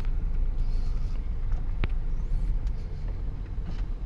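A 2008 Toyota Vios running, a steady low rumble, with one sharp click a little under two seconds in.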